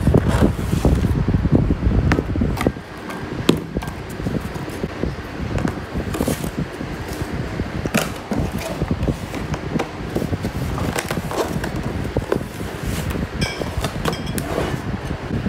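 Glass food-storage bowls and their lids being lifted out of a cardboard box and set down, with scattered clinks and taps of glass and lids. Under them runs a steady low rumble, loudest in the first couple of seconds.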